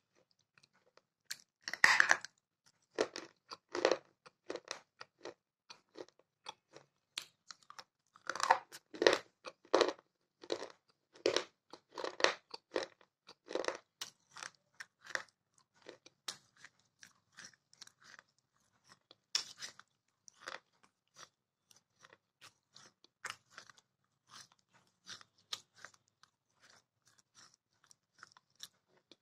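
Pieces of a fired clay cup being bitten and chewed: sharp crunches in irregular runs, loudest about two seconds in and again from about eight to fourteen seconds, then softer, sparser chewing.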